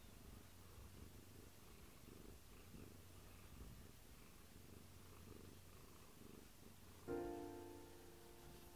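A cat purring faintly and steadily. About seven seconds in, a piano chord sounds and fades away.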